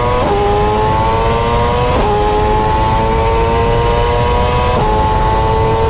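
High-revving engine accelerating hard, its pitch climbing steadily and dropping sharply at three upshifts.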